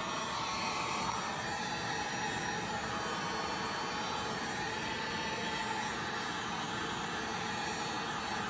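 Heat gun running steadily, its fan giving a continuous airy hiss as it blows hot air over wet epoxy to push the paint and glitter around.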